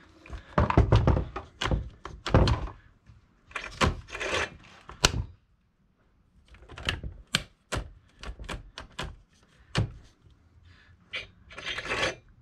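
Irregular clicks, clacks and thunks of a new gas chainsaw being handled with the engine off, as the chain is worked by hand to find a rub, which the owner puts down to the chain brake hanging up.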